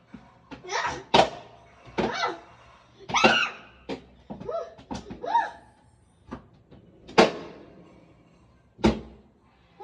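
A series of sharp thuds and knocks, the loudest about a second in, near seven seconds and near nine seconds, with a girl's short squeals and laughs in between.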